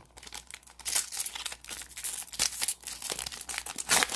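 Plastic wrapper of a trading-card cello pack crinkling and tearing as the pack is ripped open and the cards pulled out: a run of irregular crackles, loudest about a second in and near the end.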